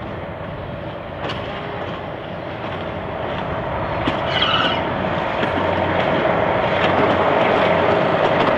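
Walker railmotor 91RM, powered by twin Gardner 8LW diesel engines, approaching and passing close by: a steady engine hum that grows louder as it nears, with a few wheel clicks over the rail joints.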